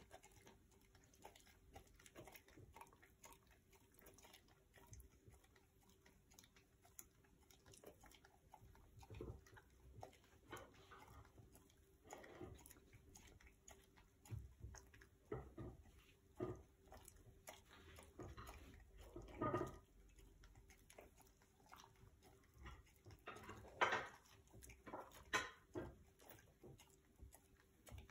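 Faint, intermittent lip-licking and mouth-smacking by a Siberian husky licking cupcake off its mouth, in otherwise near silence; a few louder smacks come past the middle and toward the end.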